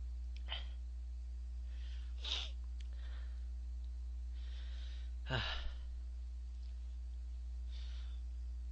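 A man's breathing: several short, breathy exhales or sniffs, the loudest about five seconds in ending in a voiced sigh that falls in pitch, over a steady low electrical hum.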